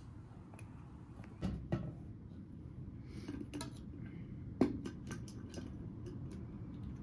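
A few light knocks and clicks over a low room hum: two knocks about a second and a half in, a sharper one just past the middle, then a quick run of small ticks.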